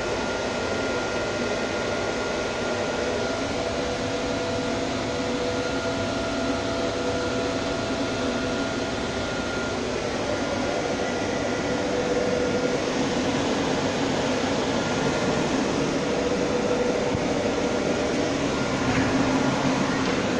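CNC lathe running: a steady mechanical hum and noise, with faint whining tones that change pitch every few seconds.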